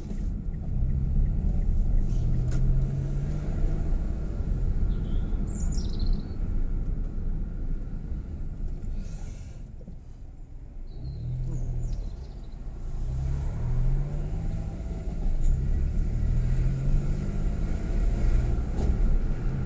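Car engine and road rumble heard from inside the cabin while driving, the engine note rising and falling several times as the car speeds up and changes gear, with a quieter stretch about halfway through.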